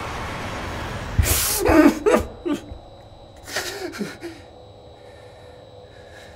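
A young man crying: a sharp, loud gasping breath about a second in, then choked, wavering sobs, and another sob about three and a half seconds in.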